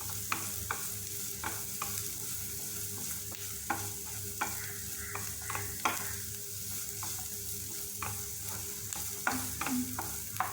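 Chopped onion and capsicum sizzling in hot oil in a pan as they are sautéed, with the stirring utensil scraping and tapping the pan at irregular moments.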